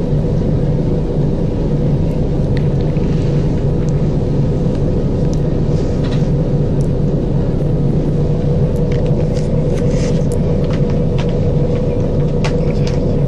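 Class 455 third-rail electric train heard from inside the carriage as it creeps along the platform: a steady low rumble of wheels and running gear under a constant electrical hum. Light clicks and squeaks come and go in the second half.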